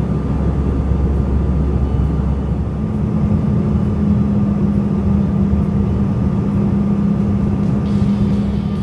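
A vehicle running with a steady engine drone and a low hum; the pitch steps up slightly about three seconds in.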